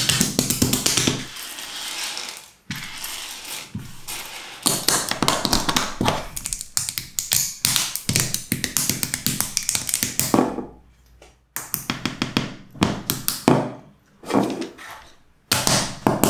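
Plastic Mega Construx building bricks clicking and clattering as they are sorted on a wooden tabletop and snapped together, a dense run of small taps broken by a couple of brief pauses. Music fades out about a second in.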